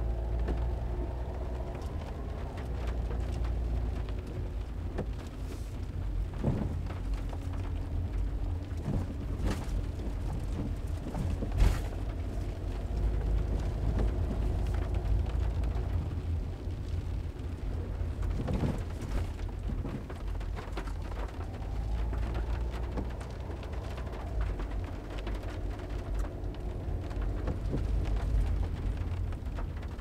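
Rain on a small camper van's windshield and roof, heard from inside the cabin while driving, over the low rumble of the engine and tyres. The engine's pitch drifts up and down. A few sharp knocks come through, with the loudest near the middle.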